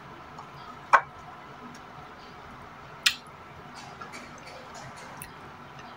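Eating sounds: two sharp clicks about two seconds apart, the first about a second in, with faint small clicks around them, as boiled okra is picked out of a ceramic bowl by hand and bitten.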